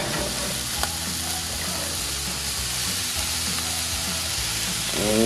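Burger patties sizzling on a hot grill grate: a steady frying hiss.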